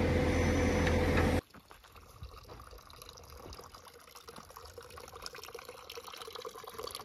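An engine runs with a steady hum and cuts off abruptly about a second and a half in. After that, faint running water trickles steadily.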